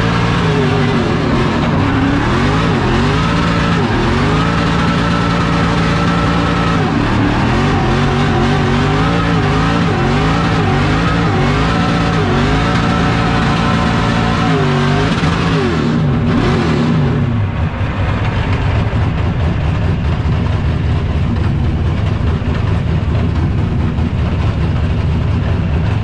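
Drift car engine revving in repeated swells, its pitch rising and falling about once or twice a second under throttle changes. From about 17 seconds in it gives way to a steadier, rougher mix of engine and tyre noise.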